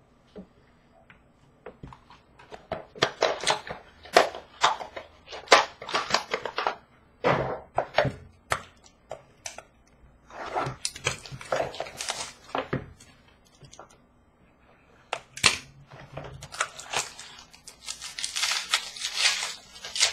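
Trading card packaging being opened and handled: a run of sharp clicks, taps and tearing for about ten seconds, then, after a short pause, a stretch of crinkling and tearing of wrapper near the end.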